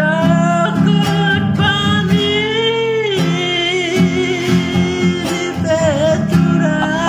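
A man singing with a strained, reaching voice, holding long wavering high notes, over a strummed acoustic guitar.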